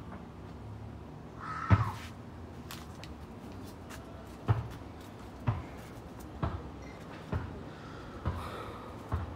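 Footsteps of a person walking, dull thumps about once a second, with a crow cawing twice in the background, once early and once near the end.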